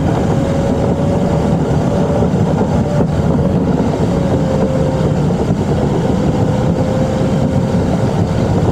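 A car driving at highway speed, heard from inside the cabin: steady road and engine noise, with a faint thin whine that holds roughly one pitch, drifting slightly.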